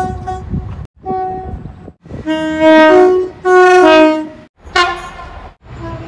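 A quick run of train horn blasts from several short clips cut abruptly together. The loudest, from about two to four seconds in, is a two-tone horn alternating between a higher and a lower note.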